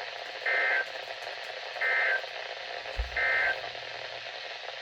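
Three short SAME digital data bursts from NOAA Weather Radio, each about a third of a second and just over a second apart: the EAS end-of-message signal that closes an alert or test. A steady radio hiss runs underneath, with a brief low thump about three seconds in.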